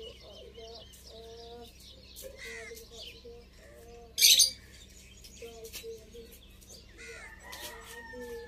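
Birds chirping and calling all around, with short repeated low notes underneath and one loud, harsh burst about four seconds in.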